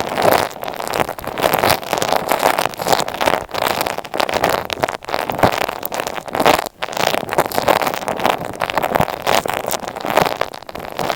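Close, dense scratching and crackling of objects rubbed directly against an earphone microphone, continuous with uneven swells and a brief dip about two-thirds of the way through.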